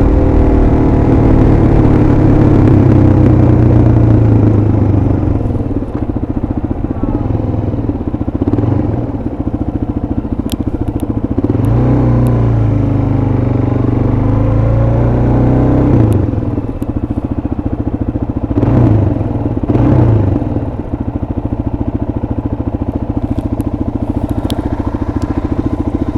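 Suzuki DR-Z400SM's single-cylinder four-stroke engine running under way, the throttle opening and closing: the note rises and falls in several short revs through the middle, then settles into a steady lower note near the end.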